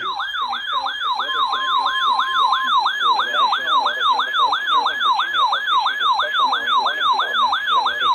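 Electronic siren-style alert tone, sweeping up and down about three times a second, used as an Emergency Alert System attention signal. About a second in, a steady beep sounds over it for about a second and a half.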